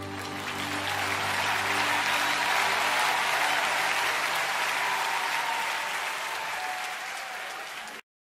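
Crowd applause that swells over the first couple of seconds, slowly dies down, and cuts off abruptly near the end, with the last of the background music fading under it.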